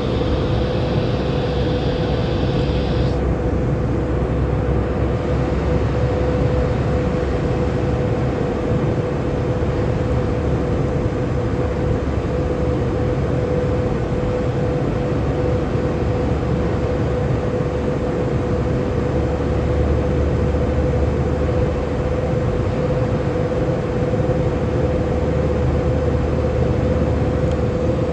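Airbus A320 jet engines running steadily, heard inside the cabin as a loud even rush with a steady hum. A higher hiss cuts off about three seconds in.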